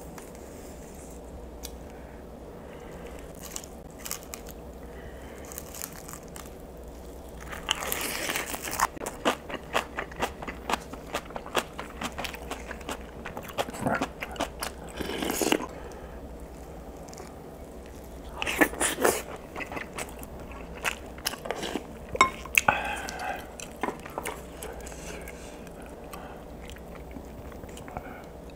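Close-miked eating sounds of a man chewing and biting braised kimchi: wet, clicky mouth noises in two long spells, with quieter pauses at the start and end.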